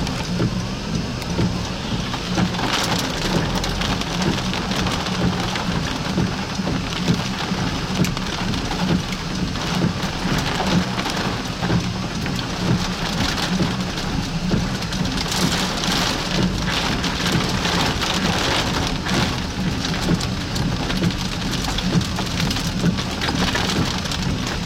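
Heavy rain falling on a storm chaser's vehicle: a dense, constant patter of drops over a steady low hum.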